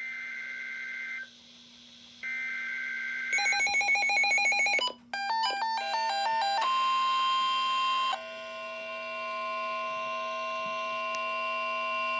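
NOAA Weather Radio Emergency Alert System alert tones: two short bursts of the two-pitch SAME header data tones with a pause between, then rapid electronic beeping and a run of stepping tones, then a steady alarm tone from about six and a half seconds in, announcing a severe weather warning.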